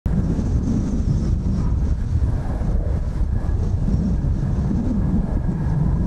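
Strong wind buffeting the microphone, a heavy, steady low rumble, with the faint high whine of a distant approaching jet over it.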